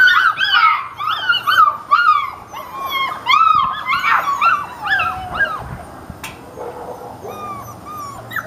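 A litter of six-week-old puppies whining and yelping together in many short, high, overlapping cries. The cries crowd together at first, then thin out and grow fainter after about five seconds.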